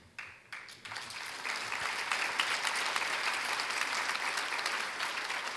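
Audience applauding, building over about the first second and a half, then holding steady.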